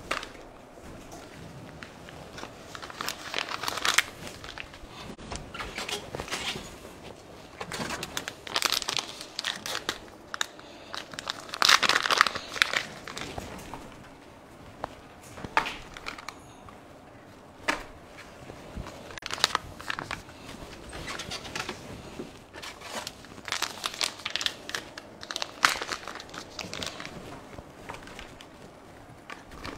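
Plastic packaging crinkling and rustling in irregular bursts of a second or two, as cat food is handed out to feeding cats.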